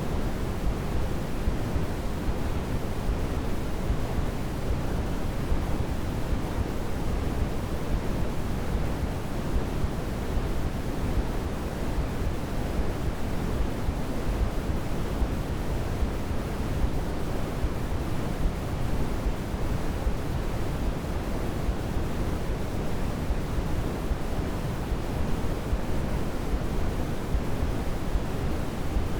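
Steady baby sleep-aid noise: an even, deep hiss with most of its weight in the low end, thinning toward the top. The level holds constant, with no swells or breaks.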